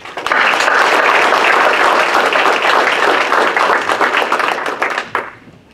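Audience applauding, many hands clapping together; the applause dies away about five seconds in.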